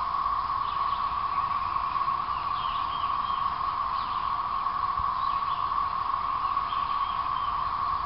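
Dense chorus of 13-year periodical cicadas (Magicicada, Brood XIX): a steady, unbroken drone, with a few faint bird chirps over it.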